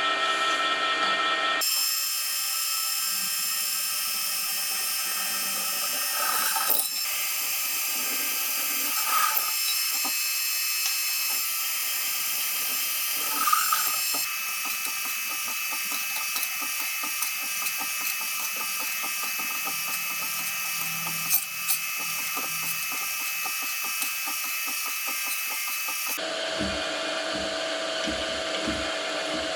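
A power tool running on metal, a steady high whine over rapid clicking, with its sound changing a few times along the way.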